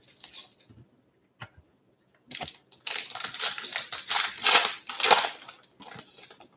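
A baseball card pack's sealed wrapper being torn open and crinkled by hand: a dense crackling run of about three seconds starting a couple of seconds in, with lighter rustles and a tap before it and softer rustling as the cards are pulled out.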